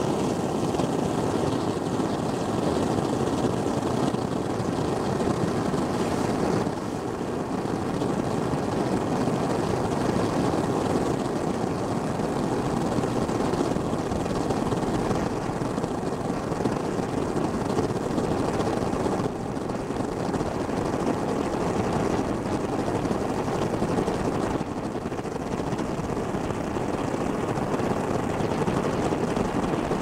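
Methane gas burning as it escapes through a hole in lake ice: a steady rushing roar, dipping briefly three times.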